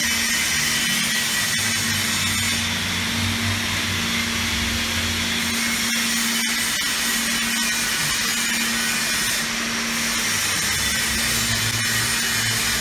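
Steady hum and hiss of workshop machinery, with a constant low drone and scattered faint clicks.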